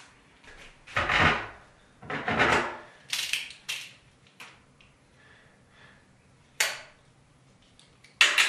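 Metal hand tools being handled on an aluminium work platform: two half-second scraping or rubbing sounds, then a few sharp clicks and knocks of metal on metal.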